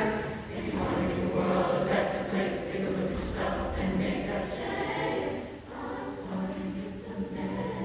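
A mixed choir of young voices singing together, the sound dipping briefly a little past halfway before the singing carries on.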